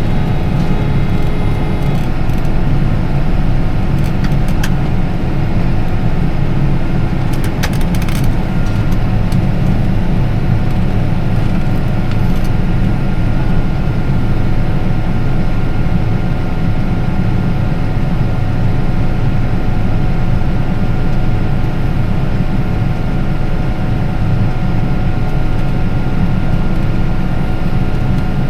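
Tractor engine running steadily under load while driving a grain cart's unloading augers, a continuous low drone with a faint steady whine on top. The unloading is slow, which the driver blames on worn flighting on the cart's cross augers.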